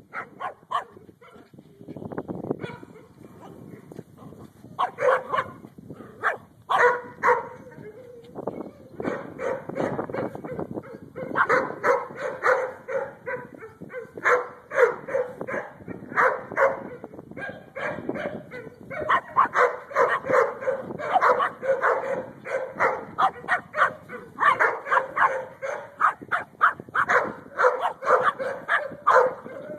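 Yorkshire terrier yapping: runs of rapid, high-pitched barks, several a second, broken by short pauses.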